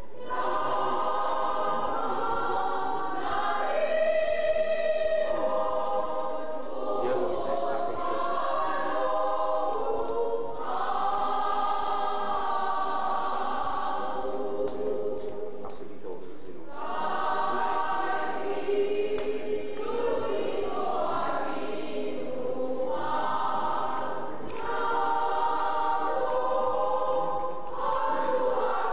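A choir of many voices singing together in sustained phrases, with short breaks between phrases.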